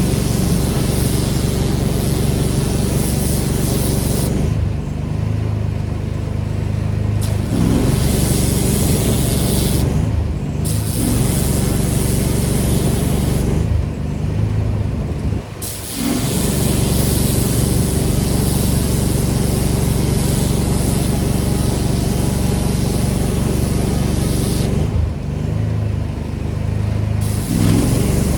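Pressure washer's engine running steadily under a loud hiss of high-pressure spray. The spray cuts out four times for a second or two as the trigger is let go, and the engine note shifts each time.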